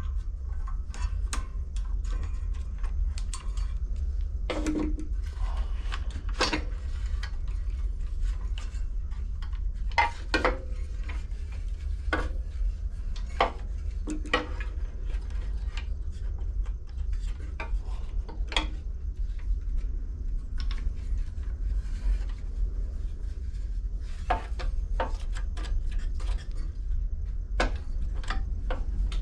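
Scattered sharp metal clicks and clinks, every second or two, as tools and small parts are handled while the carburetor and its linkage springs are worked off a small lawn mower engine. A steady low hum runs underneath.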